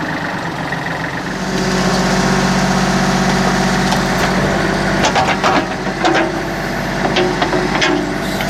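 Backhoe's diesel engine running and picking up under hydraulic load about a second in as the boom swings. Several sharp knocks and clanks follow from about five seconds in.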